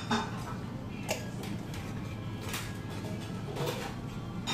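A few sharp clicks of chopsticks and a soup spoon against a ramen bowl, over a steady restaurant hum.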